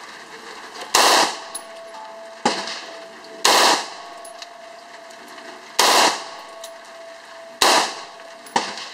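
M4 carbine fired on full auto in four short bursts a couple of seconds apart, with two fainter single shots in between.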